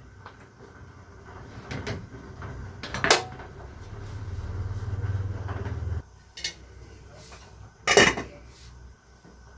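Kitchen handling sounds: cookware and dishes knocked and set down, with sharp knocks about two, three and eight seconds in, the last the loudest. A low hum runs for a couple of seconds in the middle and cuts off suddenly.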